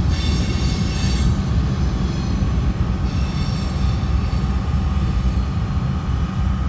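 Train of empty covered hopper cars rolling past with a steady low rumble. Wheels squeal twice, high and thin: once in the first second and again about three seconds in.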